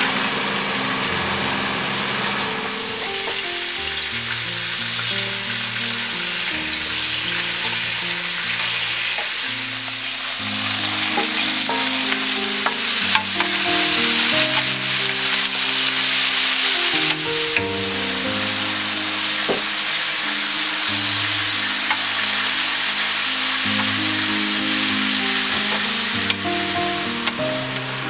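Food frying in hot oil in a pan: a steady sizzle with a few small sharp clicks. Under it runs background music of slow, held low notes.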